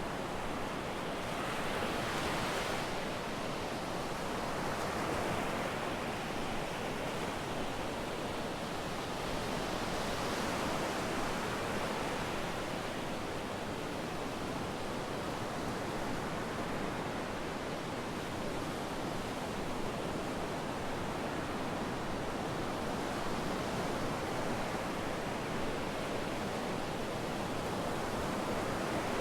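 Sea waves breaking and washing up on a beach, a steady surf noise that swells and eases every few seconds.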